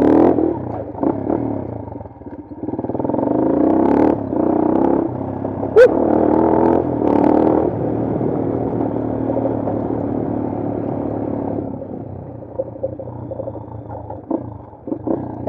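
Bashan Brozz 250 dual-sport motorcycle engine revving up and easing off while riding a dirt trail, with a sharp knock about six seconds in. It settles to lower, steadier revs for the last few seconds.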